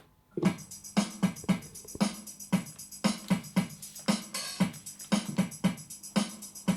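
Instrumental music that starts about half a second in, with a steady, rhythmic drum beat.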